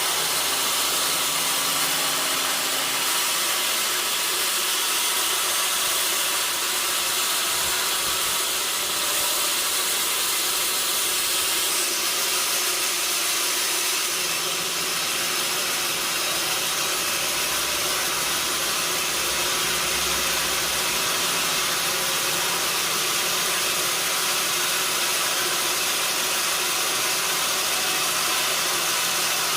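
Sawmill saw running steadily, a continuous noise strongest in the high pitches.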